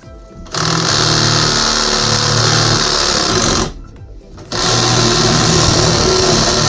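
A power tool running loudly in two long runs, with a short pause just under a second long in the middle.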